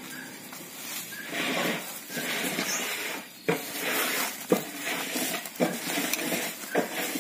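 Hands scooping dark potting soil out of a plastic sack: rustling and scraping of soil against the sack, with a few sharp knocks in the second half.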